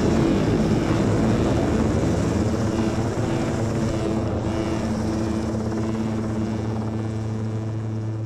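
UH-60 Black Hawk helicopter overhead: dense rotor noise with a fast steady rotor beat, slowly fading.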